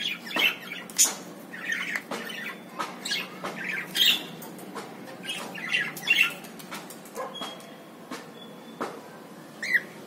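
Cockatiels giving short chirps and squawks, with the splashing and scrabbling of a cockatiel bathing in a shallow plastic tub of water, dipping its head in.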